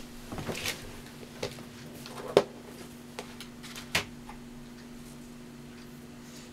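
Clear plastic craft box of embroidery thread being handled and opened: a handful of sharp plastic clicks and knocks over the first four seconds, the loudest about two and a half seconds in, over a steady low hum.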